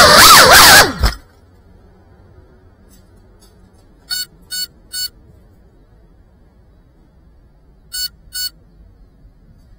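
GEPRC CineLog 35 cinewhoop FPV drone's motors whining, rising and falling in pitch, then cutting off abruptly with a thump about a second in as the drone comes down on the ground. Then come three short electronic beeps about four seconds in and two more near the end, from the drone's beeper.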